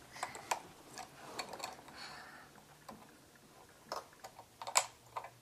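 Plastic Lego pieces clicking and knocking together as they are handled, a scattering of irregular clicks with the loudest a little before the end.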